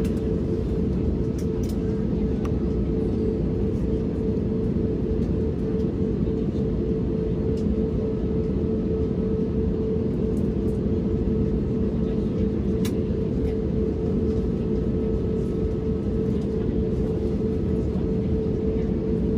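Steady cabin noise inside an Airbus A320-251N (A320neo) with its CFM LEAP-1A engines running: a constant low rumble with a hum held at one pitch.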